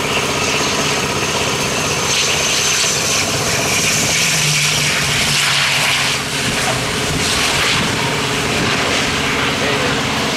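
Twin turboprop engines and propellers of an ATR 72 airliner running through touchdown and the landing roll. A steady drone with a thin high whine in the first few seconds.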